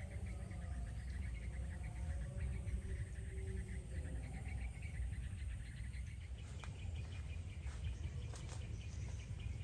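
Insects chirping in a fast pulsing trill over a steady low rumble. About two-thirds of the way in, a few sharp snaps and rustles join it.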